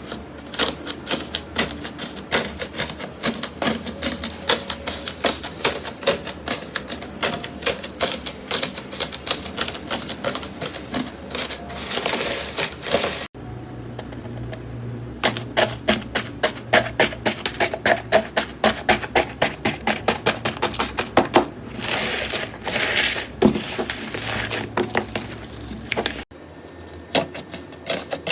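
Slime being squeezed and pressed by hand, giving a rapid run of sharp crackles and pops as air pockets burst. The sound changes abruptly twice, about 13 and 26 seconds in.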